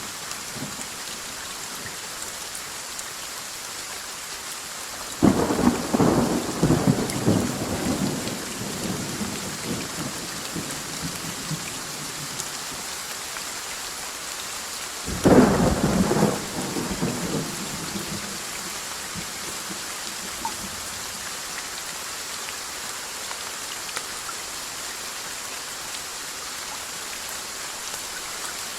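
Steady rain falling with two thunderclaps, one about five seconds in and another about fifteen seconds in, each breaking suddenly and rumbling away over two or three seconds.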